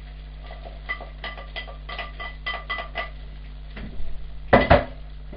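Kitchen cookware clinking: a string of light metallic clinks with a short ring, then two loud clattering knocks near the end.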